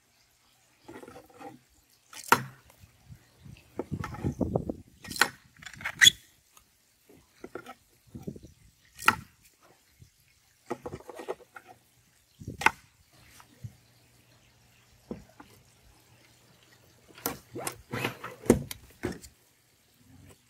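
3D-printed PETG spacer pieces being handled and fitted into a metal deck umbrella mount tube, giving irregular sharp plastic clicks and knocks, then a wooden umbrella pole set down into the tube with a cluster of louder knocks near the end.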